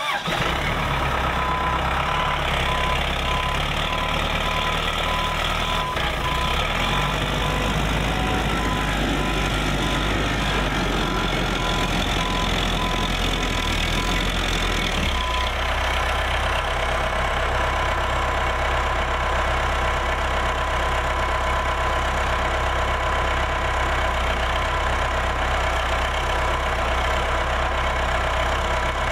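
An engine running steadily, with a thin high whine over its low hum; the sound shifts about halfway through.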